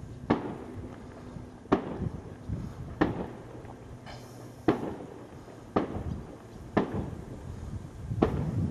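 Firework battery (cake) going off in the sky: seven sharp bangs, spaced about a second to a second and a half apart, each trailing off in a short echo.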